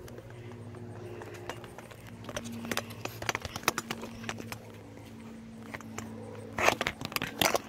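Handling noise from a phone on a loose selfie stick: scattered clicks and knocks, with a loud burst of clattering near the end, over a steady low mechanical hum.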